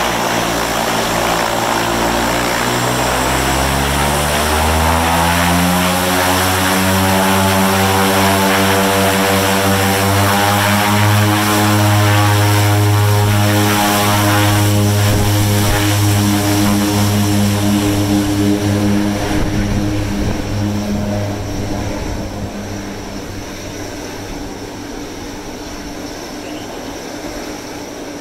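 Twin turboprop engines of a de Havilland Canada DHC-6 Twin Otter spooling up to takeoff power, the propeller tone rising over the first several seconds, then holding steady and loud at full power. About twenty seconds in, the sound fades as the plane rolls away down the runway on its takeoff run.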